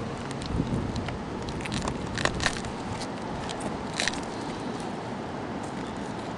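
Flexible black plastic solar collector tubes being pushed and flexed by hand around a PVC header: scattered crackles and clicks, with a few sharper ones about two seconds in and again about four seconds in, over a steady background hiss.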